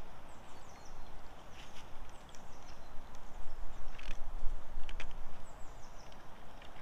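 Outdoor pond-bank ambience: a low rumble of wind on the microphone that swells around the middle, with small birds giving short chirps that fall in pitch. A few sharp clicks come about four to five seconds in.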